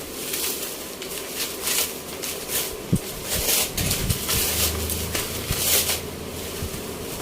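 Plastic packaging around a keyboard crinkling and rustling in irregular bursts as it is unwrapped and handled, with a few light knocks.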